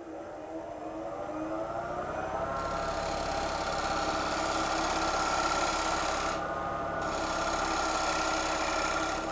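A 3/8-inch swept-back bowl gouge is taking a light finishing cut across a spinning wood bowl blank on a Coronet Herald lathe, cleaning off tool lines. It starts as rising tones, then turns into a steady hiss of shavings that breaks off briefly about six seconds in and picks up again. The lathe hums underneath.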